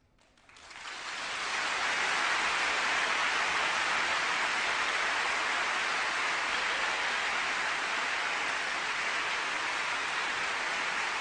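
Audience applauding steadily, fading in over the first second or so, with no music playing yet.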